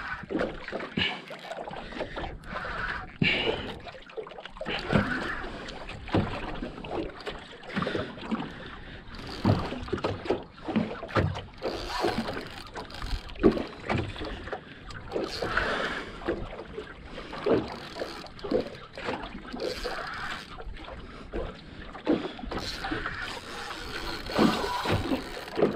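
Water slapping against a small metal boat's hull, with irregular knocks and clicks as it rocks on the swell.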